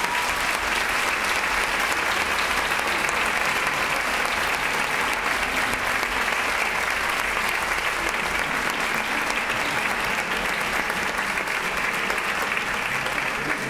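Theatre audience applauding steadily at the end of a musical number.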